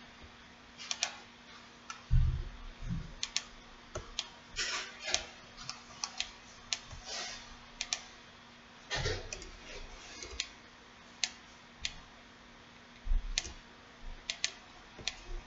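Irregular clicking of a computer mouse and keyboard, with a few dull low thumps mixed in; the loudest thump comes about two seconds in.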